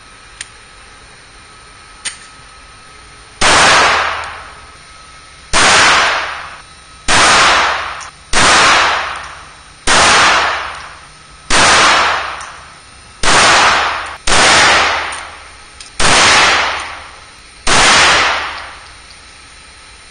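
A handgun fired ten times in slow succession, about one to two seconds between shots. Each shot is followed by a ringing tail lasting about a second. Two faint clicks come before the first shot.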